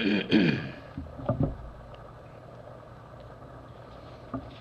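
Old newsprint pages being handled and rustling in a few short bursts in the first second and a half, then a steady low hum.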